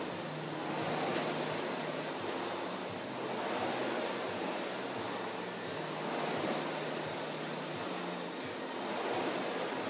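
Concept2 indoor rower's air-resistance fan flywheel whooshing, swelling with each drive stroke about every two and a half seconds.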